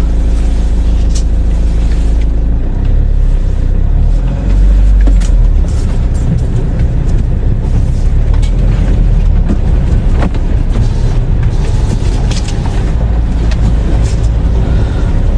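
Camper van driving, heard from inside the cab: a steady low rumble of engine and road noise that swells about five seconds in, with a few light knocks and rattles.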